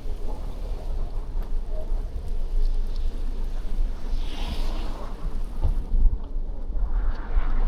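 Wind buffeting the microphone on a moving bicycle, a steady, gusting low rumble, with brief rushes of hiss about four and seven seconds in.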